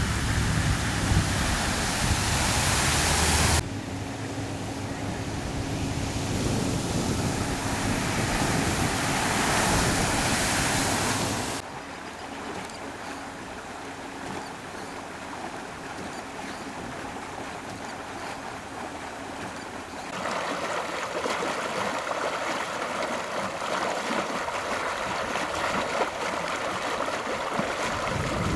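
A full-size Chevrolet pickup drives through deep floodwater, its spray hissing loudly over the low hum of its engine. After cuts, floodwater rushes and churns steadily as it wells up from below the surface of a flooded street, louder from about two-thirds of the way in.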